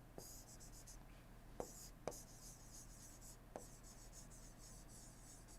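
Faint scratching of a pen writing in several short strokes, with a few light taps as the pen touches down.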